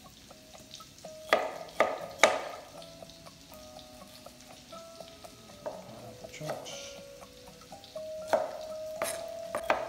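Chef's knife cutting mango on a cutting board: sharp knocks of the blade on the board, three close together a little over a second in and two more near the end. Faint sizzling of shallot and garlic frying in butter underneath.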